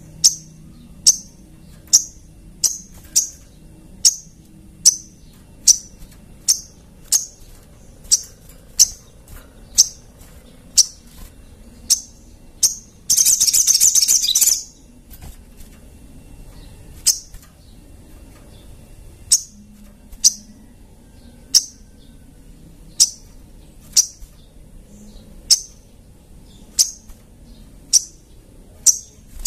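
A sogon (sogok ontong) songbird calling in a steady run of single sharp, high chirps, about three every two seconds. About halfway through, the chirps are broken by a loud, rapid twittering burst lasting a second and a half.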